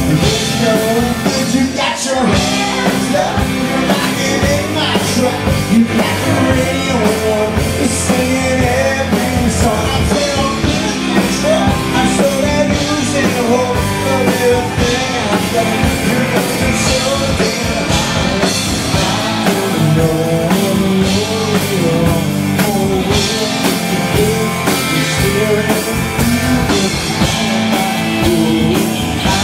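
Live rock band playing loudly and steadily: distorted electric guitar through an amp, a drum kit keeping the beat, and a singer's voice over the top.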